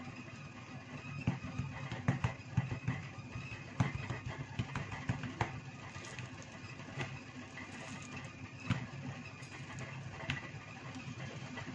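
Scattered knocks and taps as raw sirloin steaks are handled and flipped on a wooden cutting board, over a steady low mechanical hum.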